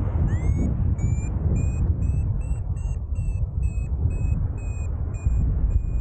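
Wind rushing over the microphone in flight, with a paragliding variometer beeping repeatedly over it. The beeps quicken to about three a second midway and slow a little near the end, the variometer's climb tone that signals the glider is rising in lift.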